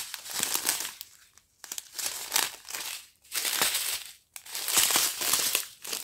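Strips of thin plastic zip bags holding diamond painting drills crinkling as they are handled and turned, in several bursts with short pauses between.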